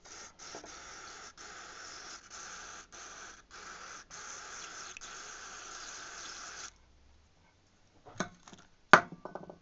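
Aerosol carb cleaner sprayed into a dirty, corroded carburettor in a run of hissing spurts for nearly seven seconds, then stopping. A few light knocks follow, with one sharp clack near the end, the loudest sound here.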